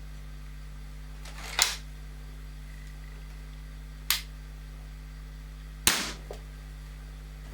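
Weihrauch HW99 spring-piston air rifle with a .20 barrel firing three separate shots, each a short sharp crack, the last followed by a smaller knock about half a second later. A steady low electrical hum runs underneath.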